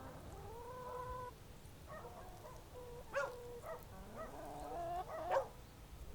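Dog whining and yelping: a drawn-out whine, then a run of short pitched cries, rising to one sharp yelp near the end.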